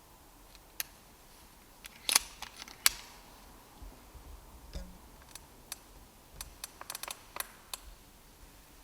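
Sharp mechanical clicks and knocks of an air rifle being handled. Two louder clicks come about two seconds in, less than a second apart, then a quick run of lighter clicks.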